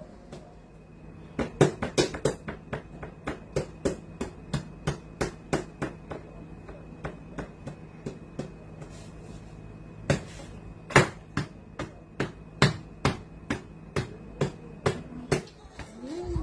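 A toddler's hands slapping a plastic high-chair tray, a long run of knocks about three a second, then more scattered with a few louder slaps.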